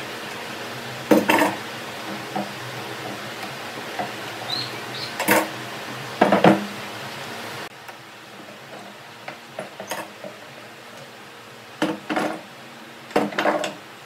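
Steel pipe clamps clanking and clinking as they are handled, set and tightened against a wooden panel: a handful of sharp metal knocks with a short ring, spread a few seconds apart.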